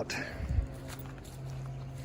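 Footsteps on the ground over a steady low motor hum, with a soft thump about half a second in.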